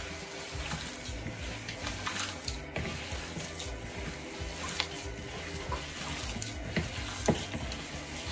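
Gloved hand mixing raw minced mutton in a bowl: wet squelching and squishing of the meat with the disposable glove rustling, and sharp clicks now and then, the loudest about seven seconds in.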